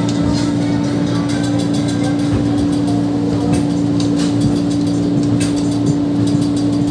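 KRL Commuter Line electric train running along the track, heard inside the passenger car: a steady rumble with one steady hum held throughout and faint light clicks.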